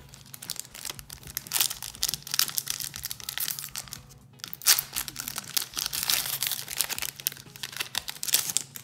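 Foil wrapper of a Pokémon TCG booster pack crinkled and torn open by hand: a busy run of sharp crackles, the loudest a little past the middle.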